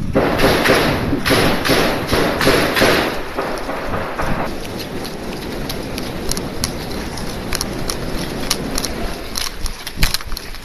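Footsteps and jostling gear of a soldier moving quickly on foot, picked up by a helmet-mounted camera, with many short knocks and rustles. The noise is loudest and roughest for the first four seconds or so, then settles to a steadier shuffle with scattered clicks.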